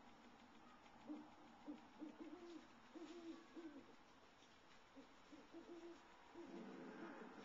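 Faint series of short, low hoots in runs, some stepping up or down in pitch, like an owl hooting.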